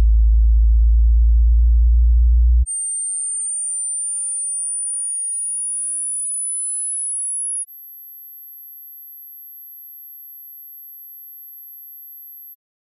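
Pure test tones for a hearing test, one after another: a loud, very low tone stops about three seconds in. A high-pitched tone slowly rising in pitch follows, then a steady, even higher and quieter tone that cuts off just before the end.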